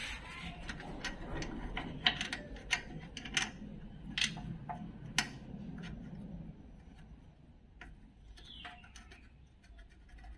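Small, irregular metallic clicks and ticks as a brake-line fitting is screwed by hand into a brake master cylinder. They come thickly in the first six seconds and thin out after.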